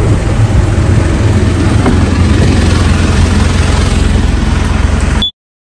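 Steady low rumble of a moving vehicle's engine and road noise, heard from inside the cab. It cuts off abruptly about five seconds in.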